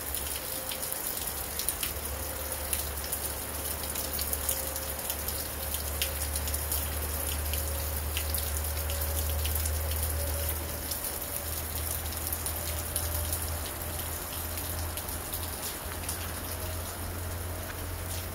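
Steady rain falling, an even hiss with many sharp individual drop hits, over a steady low rumble.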